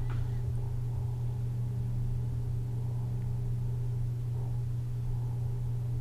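Steady low hum of background noise, unchanging throughout, with no distinct clicks or screwdriver sounds.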